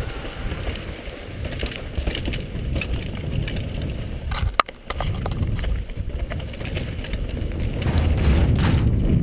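Wind rush and tyre-and-frame rumble on a helmet-mounted camera during a fast mountain bike descent on a dirt trail, with a sharp click and brief dropout about halfway, and growing louder towards the end as speed builds.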